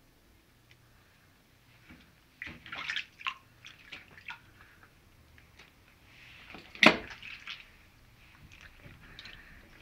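Soapy water splashing and sloshing in a shallow glass dish as a Silkie chicken is washed by hand, in irregular bursts starting about two and a half seconds in. About seven seconds in comes one sharp knock, the loudest sound.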